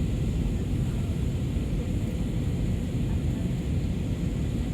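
Steady cabin noise of an Airbus A320 airliner in flight, heard from inside the cabin: an even low rumble with airflow hiss above it, unchanging throughout.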